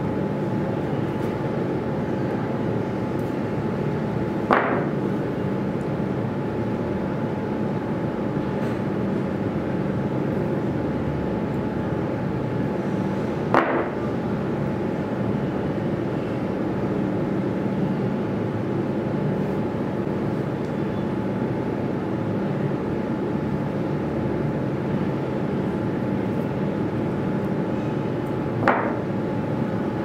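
A steady mechanical hum with a constant tone, plus three sharp clicks about four seconds in, about halfway through and near the end.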